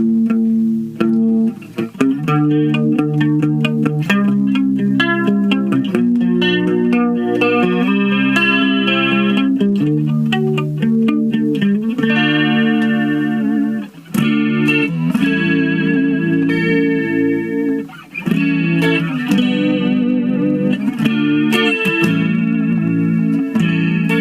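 Yamaha SE350H electric guitar, its frets freshly levelled and set up, played through a small Roland Micro Cube amp: a run of chords and riffs, with short breaks about 14 and 18 seconds in.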